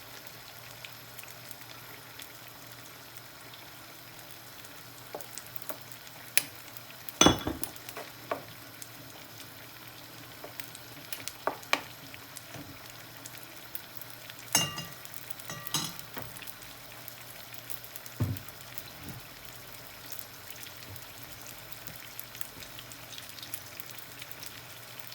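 A paella pan of seafood, rice broth and vegetables sizzling and simmering on the stove while peas are added. A handful of sharp knocks of a utensil against the pan come through, the loudest about seven seconds in.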